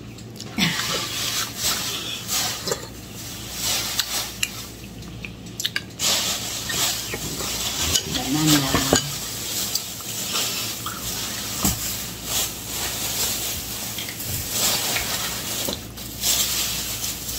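Metal spoon stirring, scraping and clinking in a ceramic soup bowl, with scattered short clicks of cutlery and dishes over a steady hiss.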